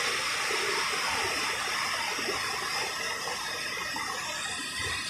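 Fast-flowing canal water rushing past, a steady even hiss.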